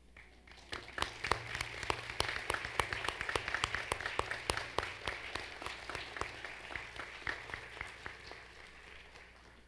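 Audience applauding, the separate claps of a modest crowd starting about a second in, strongest over the next few seconds, then thinning out near the end.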